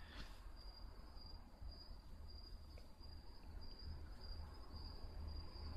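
Quiet background tone in a pause between speech: a faint, steady high-pitched whine over a low hum.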